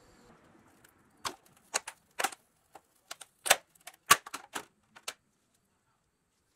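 A white plastic pipe mould handled by gloved hands on a hard work surface: a string of about a dozen sharp, irregular taps and clicks over roughly four seconds.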